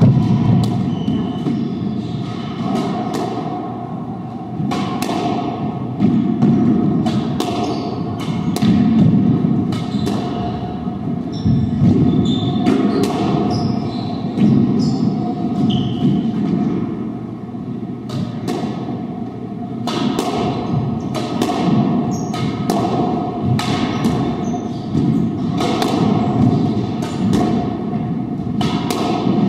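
Squash ball being struck by racquets and smacking off the court walls in a doubles rally: a string of sharp hits, roughly one every half second to a second, over a steady background hum.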